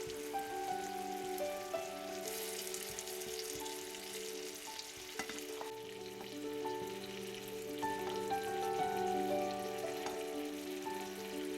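Food sizzling in oil in a frying pan, with a few sharp clicks of a utensil, under gentle background music with a slow melody. The sizzle swells about two seconds in.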